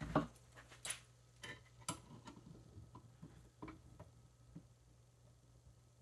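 Light metal clicks and taps of pliers being picked up off a wooden bench and closed onto a pocketknife blade held in a bench vise, to bend the blade toward centre. The sharpest clicks come in the first two seconds, with fainter ones until about four and a half seconds in.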